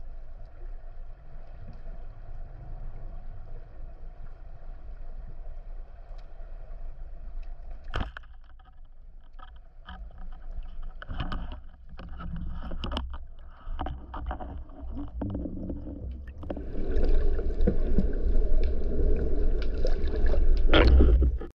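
Water heard through an underwater action camera's housing: a steady low rumble with scattered sharp clicks and knocks, the loudest about eight seconds in. Near the end it turns into louder churning, bubbling water as the diver breaks the surface, then cuts off suddenly.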